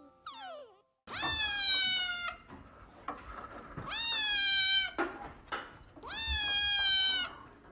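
Domestic cat meowing: three long, drawn-out meows in a row, each holding its pitch and sagging slightly at the end.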